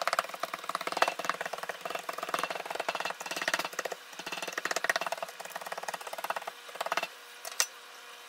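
A metal fork rapidly stabbing raw chicken thighs, its tines tapping through the meat onto the plastic cutting board beneath in a fast, uneven run of clicks that stops about seven seconds in, followed by one sharper click.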